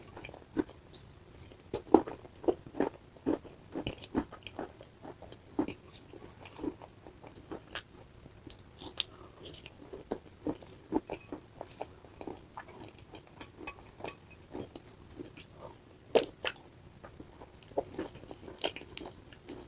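Mouth chewing and biting wet clay paste: irregular short crunches, a couple a second, thinning out in the middle and bunching up again near the end.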